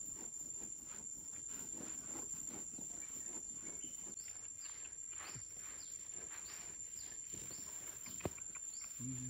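A steady high-pitched insect trill runs behind soft scraping and brushing of sandy soil as hands and a hammer smooth the ground. A single sharp tap comes about eight seconds in.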